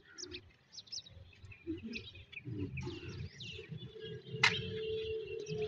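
Small birds chirping over and over in short high calls. A low steady hum and rumble comes in about halfway through, and a single sharp click sounds just after it.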